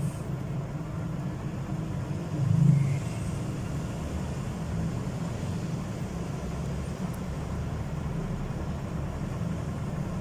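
Steady low rumble, with one brief louder swell about two and a half seconds in.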